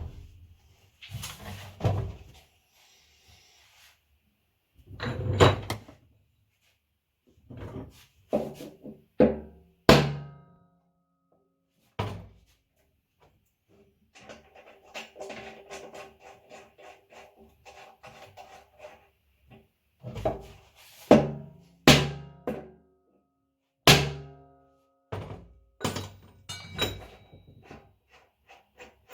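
Irregular knocks and clunks of metal and plastic washing-machine tub parts being handled and struck during disassembly, some ringing briefly. A stretch of fast rattling in the middle carries a steady tone.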